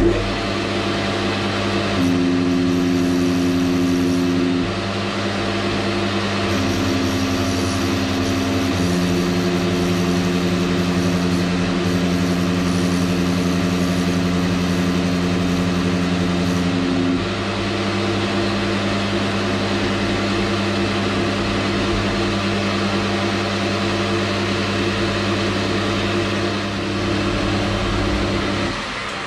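Geared-head metal lathe starting up and running steadily while turning brass hex bar stock down to round for bushes. Its gear whine and hum shift in pitch a few times. It runs down near the end.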